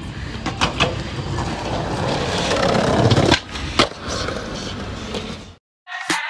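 Skateboard wheels rolling on concrete, growing louder, with several sharp clacks of the board as tricks are popped and landed. Near the end the sound cuts out and hip hop music with a steady beat starts.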